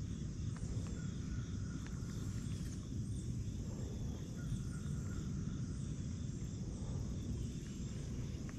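Lakeside outdoor ambience: a steady low rumble under insects chirping in an even rhythm, with a high, steady insect drone.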